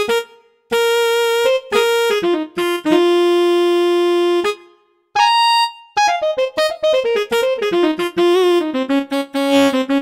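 Korg M50 synthesizer playing its "Tenor Sax Hard-Y Growl" sampled tenor saxophone patch, one note at a time: a few held notes with short breaks, then from about six seconds a quick falling run into more held notes.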